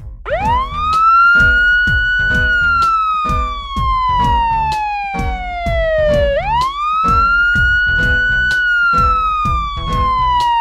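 Wailing siren: the pitch rises over about two seconds, holds briefly, then falls slowly, and the cycle starts again about six seconds in, over background music with a steady beat.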